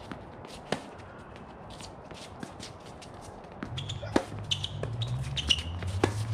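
Pickleball rally: sharp pops of paddles hitting the plastic ball, a loud one about a second in and several more in the second half, among fainter clicks. A low hum comes in about halfway through.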